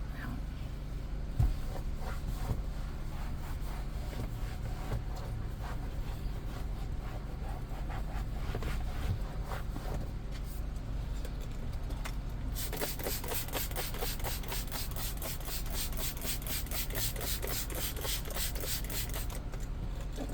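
A bristle brush scrubbing a vinyl car seat, working cleaner in to lift tire shine residue. The strokes are softer and uneven at first, with one knock early on. From about two-thirds in they become fast, even back-and-forth strokes, the loudest part.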